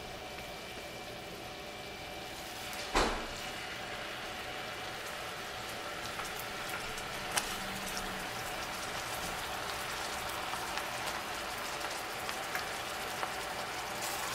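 Brown sugar, butter and bourbon glaze bubbling and sizzling in a frying pan as raw salmon fillets are laid into it, a steady crackle with scattered small pops. A single dull thump about three seconds in.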